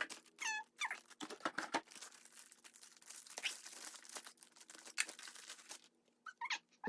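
Crinkling and rustling of packaging as a laptop is unwrapped and lifted out of its box: irregular crackles, with a brief squeak about half a second in.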